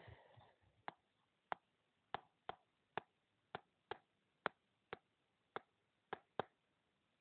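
Stylus tapping on a touchscreen while handwriting letters: about a dozen faint, short clicks at irregular spacing, roughly two a second.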